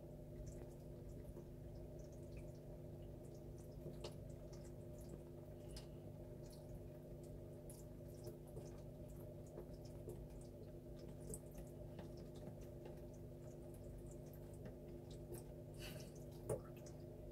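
Quiet, steady low hum with faint scattered ticks and taps, and one louder tap near the end.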